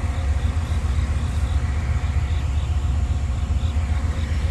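Amtrak Amfleet passenger coaches rolling past close by on the rails, a steady low rumble.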